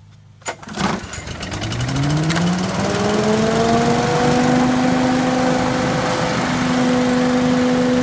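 Billy Goat K-Series lawn vacuum's Briggs & Stratton engine starting with a pull of the cord, catching within the first second. It then comes up to speed with a rising whine over about three seconds and settles into running steadily.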